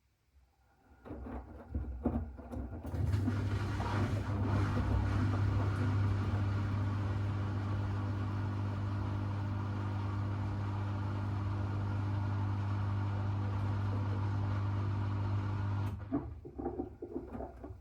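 Miele washing machine's drain pump starting up and running with a steady mains hum, pumping out water. Near the end it turns to an irregular slurping as it draws air, then stops.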